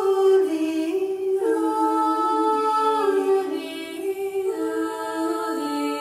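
Several voices singing a cappella in harmony, long held notes that shift pitch together every second or so. A recorded extract of a vocal composition imitating birds and waves, drawn from Scottish Gaelic song.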